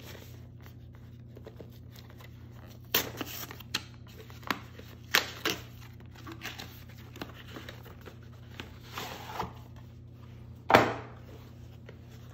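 Cardboard and plastic packaging being handled: rustling and a series of short scrapes as a box sleeve is slid off and a clear plastic seal strip is peeled and torn from the box, with the loudest scrape about eleven seconds in. A low steady hum runs underneath.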